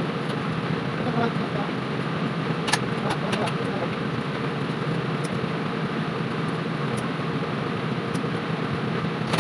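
Steady rumbling noise of a commercial kitchen, with a few sharp metallic clicks and taps from hand tools working on the gas piping under a wok burner range, and a louder sharp click right at the end.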